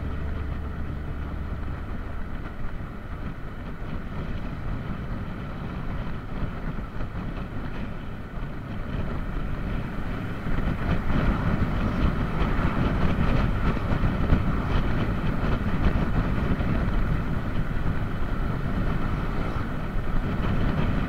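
Wind rushing over an action camera's microphone while riding a motor scooter, with the scooter's engine and road noise running underneath. The rush gets louder about halfway through.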